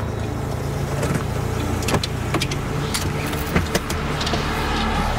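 Chevrolet sedan's engine running as the car pulls up and stops, with a series of sharp clicks and knocks as its doors are opened.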